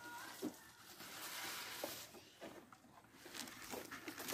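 Faint rustle of dry grain feed sliding out of a plastic bucket into a wooden feed trough, with a few soft knocks.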